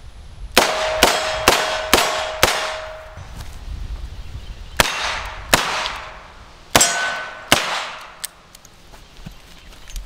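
Smith & Wesson 327, an eight-shot .357 Magnum snub-nose revolver, fired in quick strings: five shots about half a second apart, then two, then two more, with a ringing tone hanging after the first string. A few light clicks follow near the end as the spent cases are ejected.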